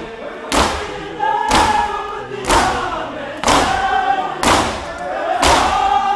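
Mourners beating their bare chests in unison (matam), a loud slap about once a second, while the crowd sings a noha as a group between the strikes.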